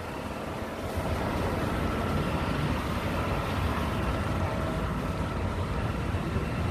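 Wind buffeting a phone microphone over a low, steady rumble of city street traffic.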